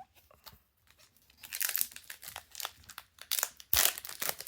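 Crinkling of a foil trading-card booster pack wrapper, starting about one and a half seconds in, with a louder sharp crackle near the end.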